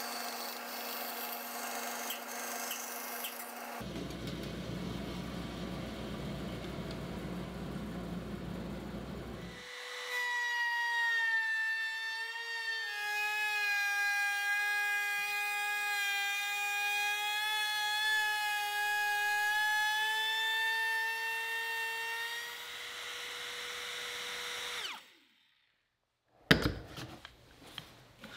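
Bandsaw cutting a curve in a cherry board, with a rough, rasping cut noise. About ten seconds in, a router takes over, trimming the cut flush to a pattern with a bearing-guided flush-trim bit: a steady high whine whose pitch sags a little under load. The whine stops abruptly, and a few knocks of wood being handled follow near the end.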